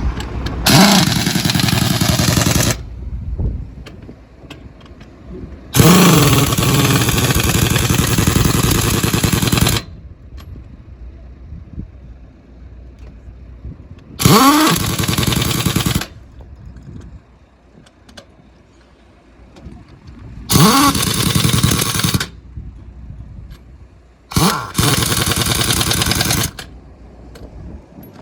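Pneumatic impact wrench on truck wheel nuts, run in five bursts of about one and a half to four seconds. Each burst spins up with a rising whine into a loud rattling run, with quieter gaps between.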